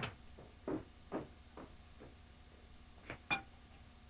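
A few scattered, light taps of drumsticks, about five in all, irregularly spaced.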